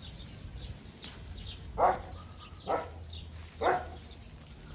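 A dog barking three times, about a second apart, with faint high chirping in the background.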